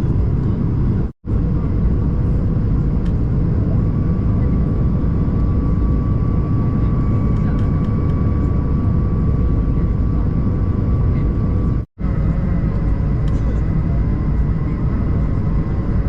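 Steady cabin rumble of an Airbus A220-300 airliner in flight for landing: airflow and the Pratt & Whitney PW1500G geared turbofans, with a few faint steady whining tones above the rumble. It cuts out for an instant twice, about a second in and again about twelve seconds in.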